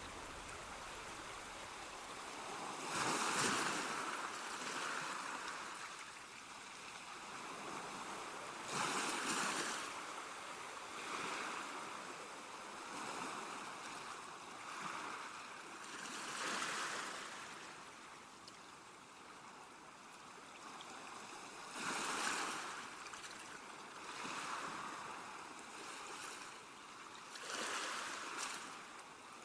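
Ambient water sound: a steady hiss that swells up and fades back every few seconds, like surf washing in.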